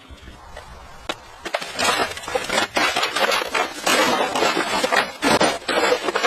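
Demolition noise: a rapid jumble of cracking, crashing impacts like wood and debris breaking, a few at first and then thick and continuous from about a second and a half in.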